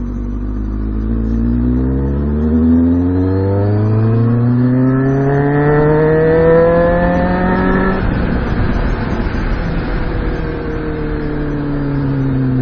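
2006 Kawasaki Ninja ZX-6R 636's inline-four engine pulling hard, its pitch rising steadily for about seven seconds. About eight seconds in the throttle comes off, the engine note gives way to a rushing noise, and then the engine falls in pitch as the bike slows.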